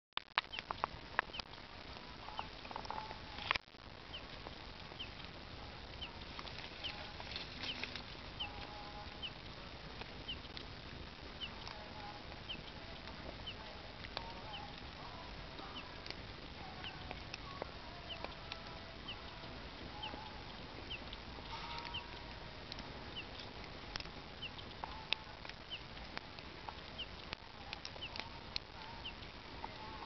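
Wood fire burning in a bed of glowing embers, crackling and popping with a steady hiss. Behind it, short chirps repeat about once a second, with faint animal calls.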